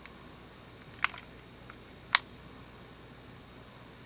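Two short sharp clicks about a second apart, over faint steady room tone, from the Homestead Geneva ceiling fan's Homestar control as it is pressed and held to reverse the fan.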